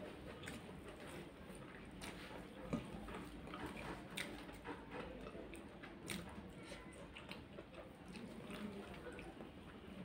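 Faint eating sounds of a person eating rice with their hand: chewing and small wet mouth clicks, with soft sounds of fingers working rice on a china plate. Scattered short clicks throughout, the sharpest a little under three seconds in.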